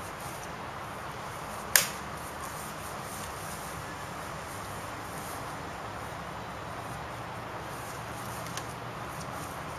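Practice weapons clashing in sword-and-shield sparring: one sharp crack of a blow landing about two seconds in, and a faint knock near the end, over a steady background hiss.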